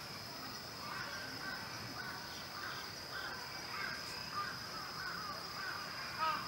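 Crows cawing in a series of short calls, faint at first and louder near the end, over a steady high-pitched hum.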